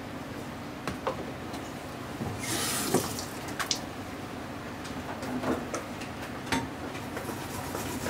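Kitchen work: scattered light clicks and knocks of utensils and dishes, with a brief rush of running water about two and a half seconds in.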